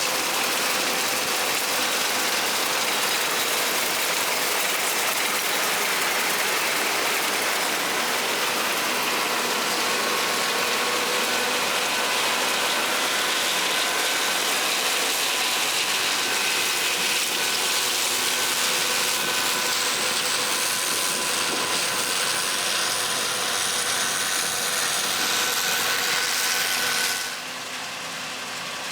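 John Deere combine harvesting soybeans: a steady, loud mechanical clatter and whir of the threshing and header drives, with a few steady whining tones. About 27 seconds in the sound drops sharply in level and loses its high end.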